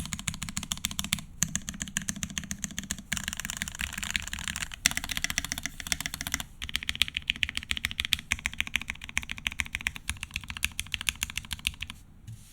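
Fast typing on a Keycult No.2 mechanical keyboard with an aluminium plate, muted PBT keycaps and lubed vintage Cherry MX Black linear switches. Runs of rapid key strokes are broken by short pauses every second or two, and the typing stops near the end.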